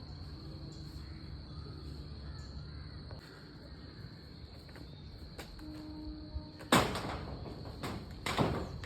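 A crow cawing twice near the end, two short harsh calls about a second and a half apart, over a steady low background hum.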